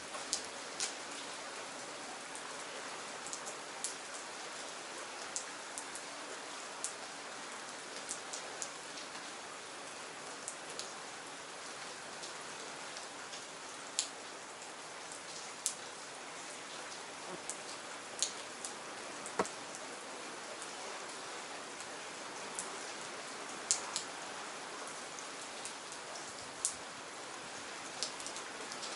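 Steady rain falling, an even hiss with irregular sharp taps of single drops striking close by, roughly one a second.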